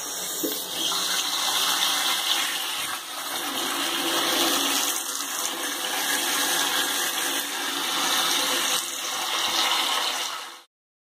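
Water running from a hose into a plastic storage box, filling it. A steady rushing splash that cuts off abruptly near the end.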